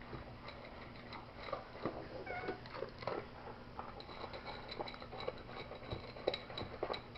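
Portuguese Water Dog gulping dry food from its bowl: quick, irregular crunches and clicks of kibble and bowl.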